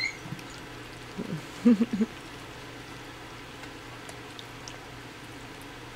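Miniature dachshund puppies eating soft wet mash, with faint smacking and lapping ticks throughout. A short high squeak comes right at the start, and a few brief pitched grunts or whines about one to two seconds in.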